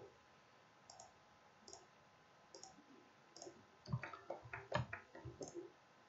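Faint computer mouse clicking: light ticks about once a second, then a quick run of clicks between about four and five and a half seconds in.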